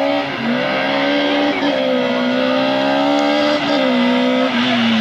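Peugeot 106 S16 rally car's 1.6-litre 16-valve four-cylinder engine held at high revs as it climbs toward the hairpin, the pitch dipping briefly about three times at gear changes and falling near the end as it slows for the corner.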